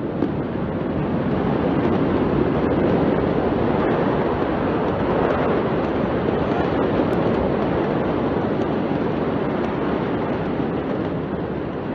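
Steady rushing noise of wind on the phone microphone, swelling over the first two seconds, with a few faint sharp pops about seven to nine seconds in.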